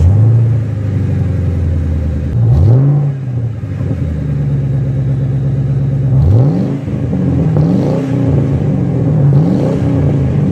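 2002 Chevrolet Malibu's engine catching and running at a fast idle, then revved: one rise and fall about two and a half seconds in, and several quick revs in the second half.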